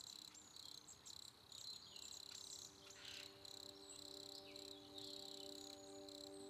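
Faint, high-pitched insect chirring that pulses on and off, with a few short chirps. Soft held music tones fade in about two seconds in.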